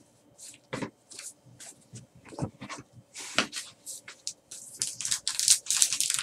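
Trading cards being slid and flipped against each other by hand, with a few sharp taps as cards are set down on the table. Near the end the swishing gets denser and louder as a wrapped card pack is handled.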